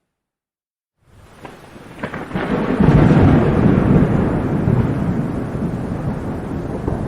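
Thunderclap: after about a second of silence it breaks in with a few sharp cracks, swells into a loud, deep rumble about three seconds in, then slowly rolls away, with rain beneath.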